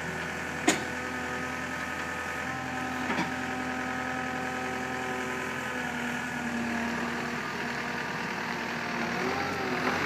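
Takeuchi TL240 compact track loader's diesel engine running steadily, with a sharp knock about a second in and a smaller double knock about three seconds in as the forks set a load of bins onto the flatbed. Near the end the engine note shifts in pitch.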